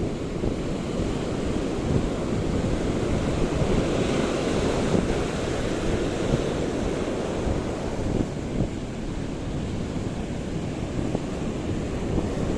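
Steady wind rumbling on the microphone, over the wash of waves on open water.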